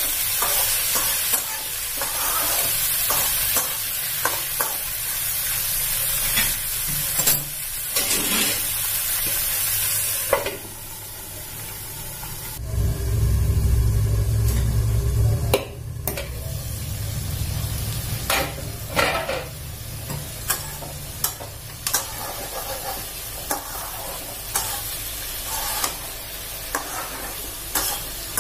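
Banana-stem pieces frying in hot oil in a kadai, sizzling while a spatula stirs and scrapes against the pan with frequent clicks. The sizzle drops away about ten seconds in, a low rumble follows for a few seconds, and then the stirring clicks and scrapes resume over a fainter sizzle.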